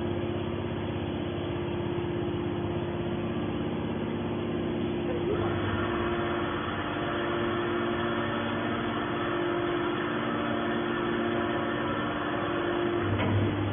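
Hydraulic scrap metal baler running with a steady drone of its pump motor, the sound brightening about five seconds in.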